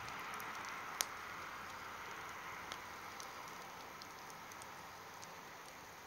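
Wood fire burning in a fire pit: a soft steady hiss with scattered crackles and pops, the sharpest about a second in.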